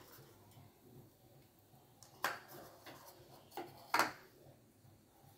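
Faint clicks and taps of fingers and a small plastic bowl as chopped almonds are picked out and sprinkled over a glass of milkshake, with two sharper knocks about two and four seconds in.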